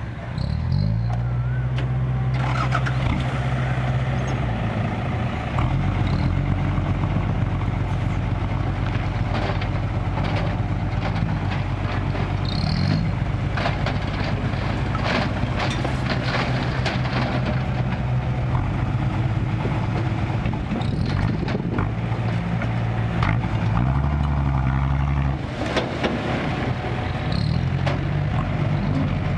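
Six-wheel dump truck's diesel engine running steadily at raised revs while its hydraulic hoist tips the bed. The load of soil and rocks slides off with scattered knocks and clatters.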